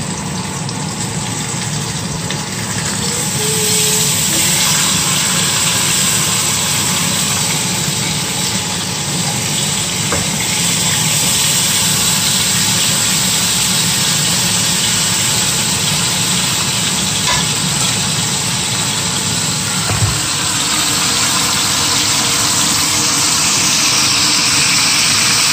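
Chicken halves frying in hot oil in a frying pan, sizzling steadily as the skin browns, with one brief knock about three-quarters of the way through.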